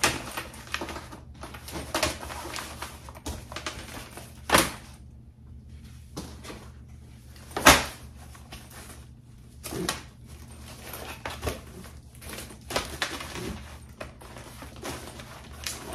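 Soft-sided insulated lunch boxes being handled, set down and opened on a counter: rustling with irregular knocks and thumps. The loudest thump comes about eight seconds in.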